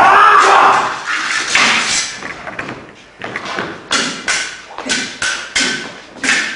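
Steel stage swords clashing again and again in a choreographed fight, the blows coming quickly in the second half, some leaving a short metallic ring, mixed with thuds of stamping footwork; a voice cries out at the very start.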